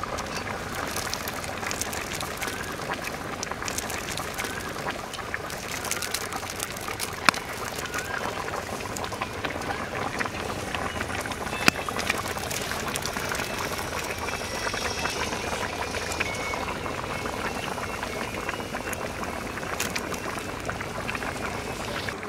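Large metal pot of fish curry boiling hard: a steady bubbling with a couple of sharp clicks.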